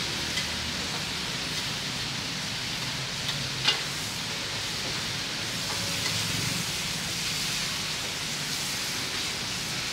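Shrimp and vegetables stir-frying in a steel wok over a charcoal fire: a steady sizzle and hiss, with the metal ladle scraping and clinking against the wok, one sharp clink about three and a half seconds in.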